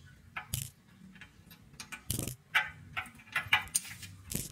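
A plastic toy frog clicking and tapping irregularly against a glass tabletop, with a louder clatter about two seconds in and another near the end.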